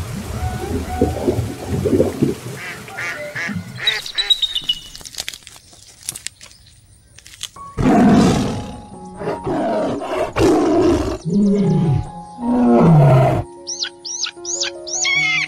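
A run of animal calls mixed with music, the last ones falling in pitch; near the end a tune of steady notes starts, with quick high chirps over it.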